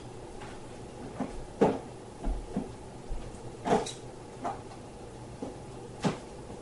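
A series of irregular knocks and clunks of objects being handled and set down, about eight in all, the loudest about a second and a half in and just under four seconds in, over a faint steady hum.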